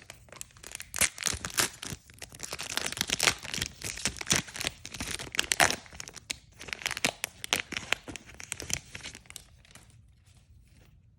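A foil booster pack wrapper being torn open and crinkled by hand: dense crackling and tearing that dies away near the end.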